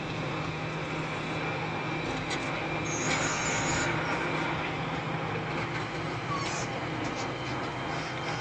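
SANY SY365H Pro excavator's diesel engine running steadily under working load, with a brief high squeal about three seconds in and a few short knocks.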